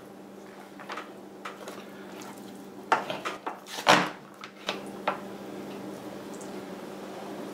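A knife clicking and scraping against a metal sheet pan while fat is trimmed from a slab of raw pork ribs, with the slab being handled on the pan: scattered sharp clicks and knocks, the loudest about four seconds in.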